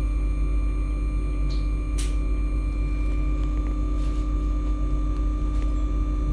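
MAN Lion's City hybrid city bus running steadily: a constant low rumble with a steady hum and a thin high whine that stay level in pitch. A short sharp hiss or click comes about two seconds in.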